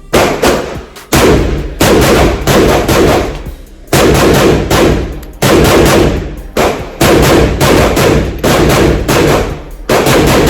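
Rapid semi-automatic fire from a 7.62×39 AK-pattern pistol, about two shots a second, each a loud crack with a ringing tail.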